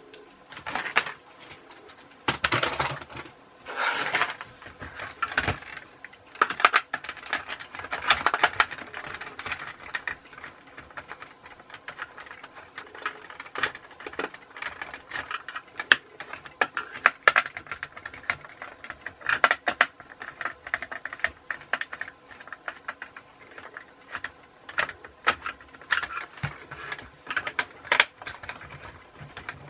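A plastic infrared remote-control toy car being stripped down by hand: irregular clicks and clatter of plastic parts and small tools being handled and set down.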